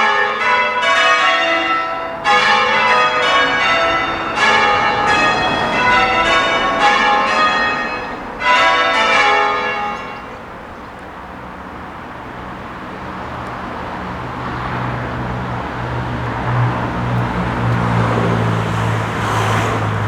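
Church bells change ringing: six bells struck in quick, even succession for about the first half, then the ringing stops. A steady low engine hum and road noise follow.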